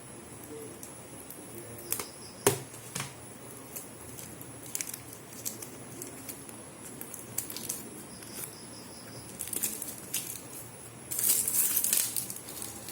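A small cardboard earphone box being cut and pried open with a knife: scattered clicks and scrapes, a sharp tap about two and a half seconds in, and a burst of crinkling near the end.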